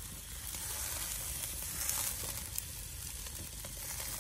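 Prime rib searing on a grill: a steady sizzle of the meat and its fat on the hot grate, with a few small pops.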